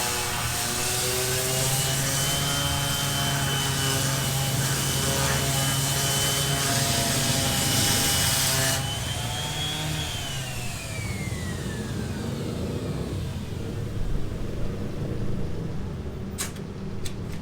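A power tool's motor runs at a steady high speed with a loud hiss. About nine seconds in it is switched off, and its whine falls steadily in pitch as it spins down. Two sharp clicks follow near the end.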